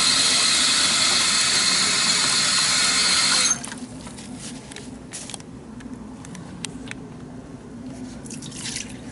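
Tap water running steadily from a sink faucet into a plastic wash basin, shut off suddenly about three and a half seconds in. After that, light knocks and clicks as the plastic basin is handled and lifted from the sink.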